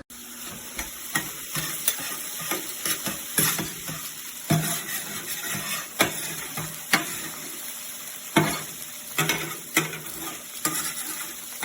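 Food frying on an electric flat-top griddle, a steady sizzle, with irregular clicks and scrapes of a metal spatula working on the plate.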